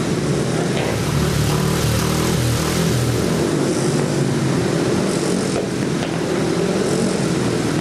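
Speedway motorcycles' single-cylinder 500cc engines revving loudly and continuously, their pitch rising and falling.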